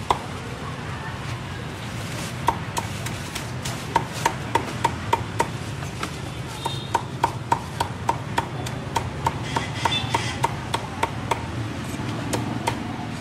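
Cleaver chopping crispy-skinned roast pork on a chopping board: a run of sharp chops, about three to four a second, starting about two seconds in and continuing in quick runs until near the end, over a steady background hum.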